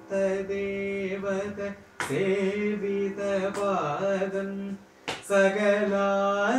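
A man singing a Carnatic kriti in raga Salagam, holding long notes with a gliding ornament near the middle. A few sharp hand claps or slaps on the thigh mark the adi tala beat.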